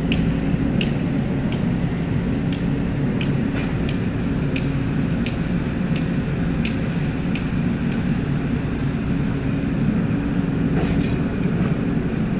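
Excavator's diesel engine running steadily under load while digging, with sharp ticks about every three-quarters of a second for the first seven seconds and a few more near the end.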